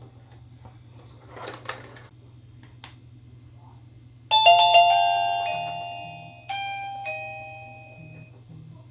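Electronic doorbell chime playing a two-note ding-dong: the first note about four seconds in, the second about two seconds later, each ringing and slowly fading. A few soft clicks come before it, over a steady low hum.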